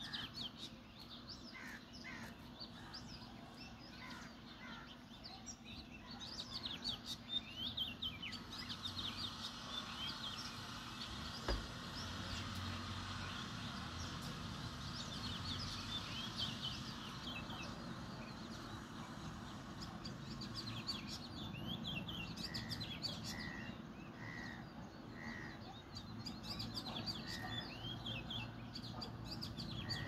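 Sparrows chirping in quick, overlapping short calls, with a run of four lower evenly spaced notes about three quarters of the way through. A single sharp click sounds near the middle.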